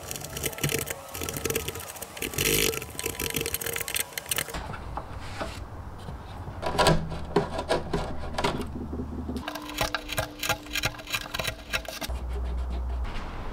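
Hand wood chisel paring and scraping poplar to cut a shallow hinge mortise: a run of short, irregular scrapes and clicks, with the metal hinge handled as it is fitted into the recess.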